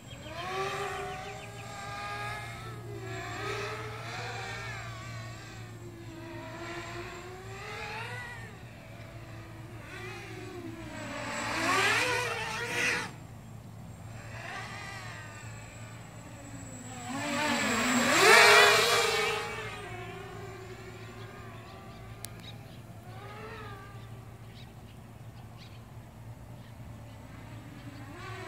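Small drone's electric motors and propellers whining, the pitch rising and falling as the throttle changes. Two louder swells come about twelve and eighteen seconds in, each with a steep sweep up in pitch.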